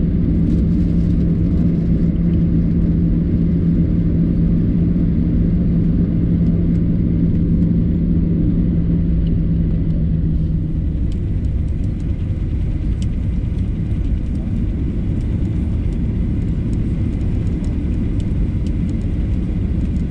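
Boeing 737-800 taxiing: a steady low rumble of its CFM56-7B engines at idle and the rolling aircraft, with a steady hum that cuts off about halfway through.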